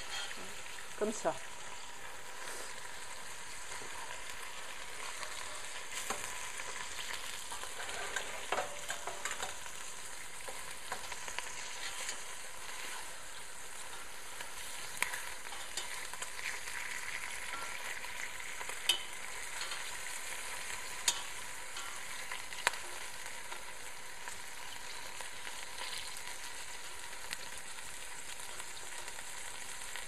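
Veal paupiettes frying in a stainless steel pot, a steady hiss, as they are turned one by one. Now and then a sharp click of the tongs against the pot.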